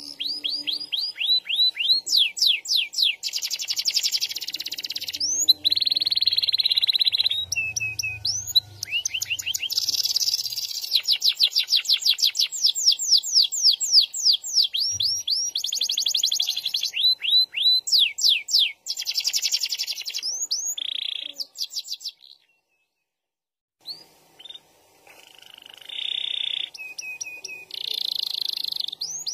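Domestic canary singing long, fast rolls of rising notes mixed with buzzy stretches. It pauses for a second or so about three-quarters of the way through, then starts again.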